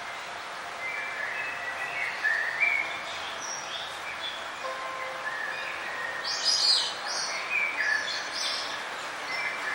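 Several songbirds chirping and warbling in short phrases over a steady hiss of outdoor background noise, busiest and loudest in the middle.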